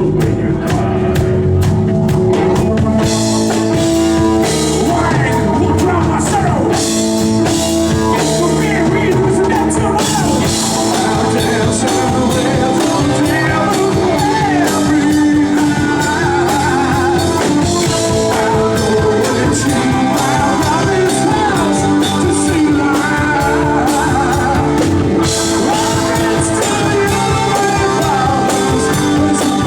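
A rock band playing live, with drum kit, guitar and singing; the music gets fuller and brighter about a third of the way in.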